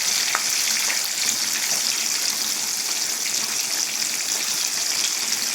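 Hot oil sizzling steadily in a frying pan, a constant hiss with small scattered crackles.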